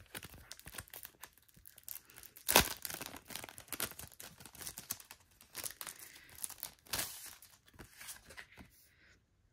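Paper mail packaging rustling, crinkling and tearing as an envelope is opened and its contents handled by hand, with one sharper rip about two and a half seconds in.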